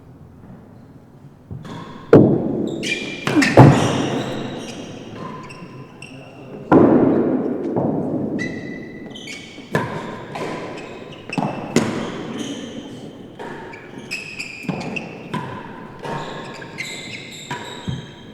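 A real tennis rally: the hard ball struck by rackets and thudding off the walls and penthouse roof of the enclosed court, each hit ringing in the hall, with short squeaks between. There are about a dozen sharp hits, a second or two apart, loudest near the start.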